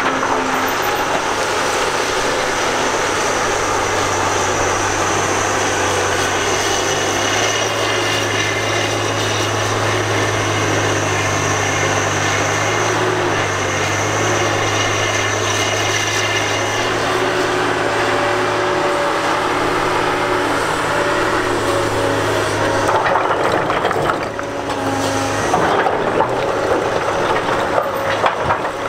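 Cat 245B excavator's diesel engine running steadily under load, with a high whine over it. From about 23 seconds in, louder scraping and knocking of broken rock joins in.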